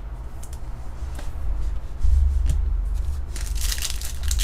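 Stiff chrome trading cards being handled and slid one over another, with a few light clicks and a louder swish of a card sliding off the stack near the end. A steady low hum runs underneath.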